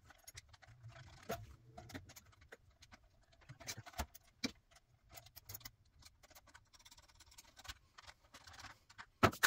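Faint, scattered clicks and small knocks of white plastic drain fittings being handled and pushed together at a garbage disposal's outlet, with a sharper clack near the end.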